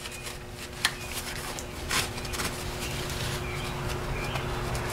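A blue paper shop towel rubs and scuffs across the top of a car battery case in gloved hands, with a few light clicks. Faint short high chirps come near the end.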